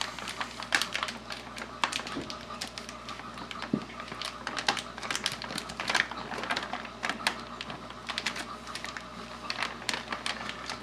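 Clear plastic fish bag crinkling in irregular crackles as its neck is twisted and knotted shut.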